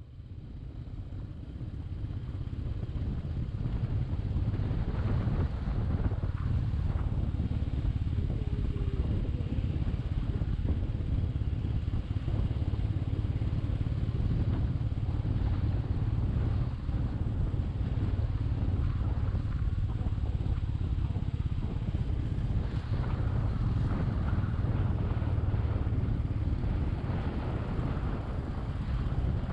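Royal Enfield Meteor 350's single-cylinder engine running steadily while riding, with road and wind noise; it grows louder over the first few seconds.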